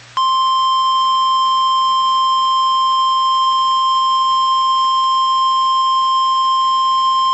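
Emergency alert warning tone: one loud, continuous, steady tone near 1 kHz, the NOAA Weather Radio warning alarm tone. It announces that a severe thunderstorm warning message is about to be read.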